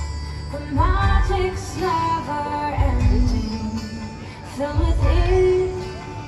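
Music with a woman's voice singing a melody over deep bass hits.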